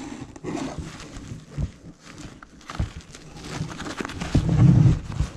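Rustling and handling noise as a thick braided recovery rope and its fabric bag are shifted around in a cardboard box, with scattered small clicks. A louder, low rumbling stretch comes about four seconds in.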